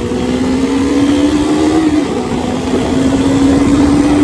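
Motorcycle engine pulling under acceleration, its pitch climbing slowly, dipping about halfway through as it changes gear and then climbing again.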